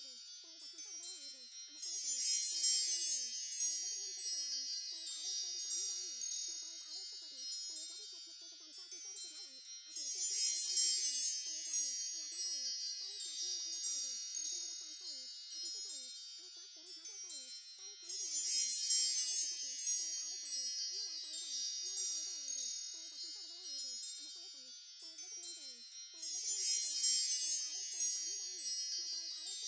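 Wind chimes ringing, a dense shimmer of high tones. The same passage loops about every eight seconds, each pass opening with a brighter swell.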